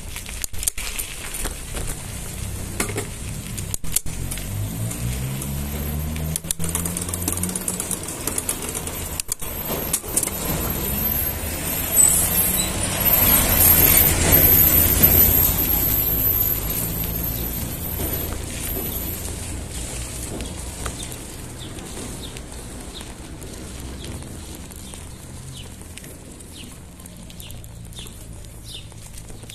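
Mountain bike rolling over rough street paving, with scattered knocks and rattles from the bumps, under a motor vehicle's engine that rises in pitch over the first several seconds. A broad rush of noise swells to its loudest about midway and then fades.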